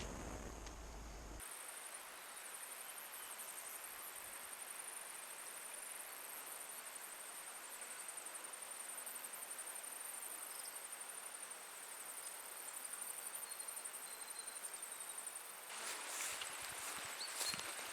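A fast, high-pitched insect chirring pulses steadily over a steady hiss of rushing water. Near the end the sound changes and a few knocks come in.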